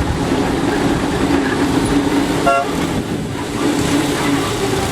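Train running with a steady rumble and low hum, and one short horn toot about halfway through.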